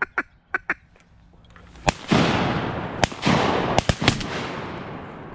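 A volley of shotgun blasts, one about two seconds in and four more over the next two seconds, with a lingering echo after them. A few short, sharp sounds come in the first second.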